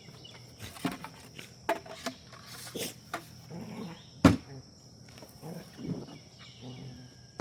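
Knocks and rustles of plastic parts and packaging being handled and set down during unboxing, with the loudest knock about four seconds in. Crickets chirp steadily in the background.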